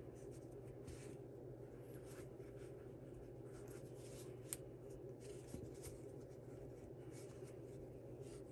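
Faint rustling and rubbing of potholder loops as a crochet hook draws the yarn tail under a loop to bury it, over a low steady hum, with one small sharp click about four and a half seconds in.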